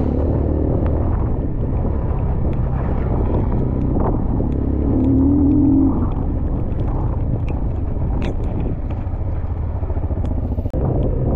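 Dirt bike engine running while the motorcycle is ridden over a rough dirt track, with a louder, held engine note about five seconds in. The engine note eases off near the end as the bike comes to a stop.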